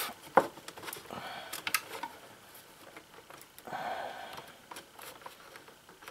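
Scattered small clicks and rustling from stiff electrical wires being bent and pushed into place behind a wooden box.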